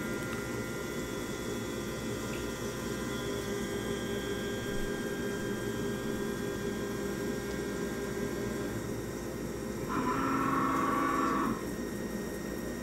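CNC mill taking light finishing (skin) cuts on a copper part under flood coolant: a steady spindle whine over the hiss of spraying coolant. About ten seconds in, a louder two-tone hum sounds for about a second and a half.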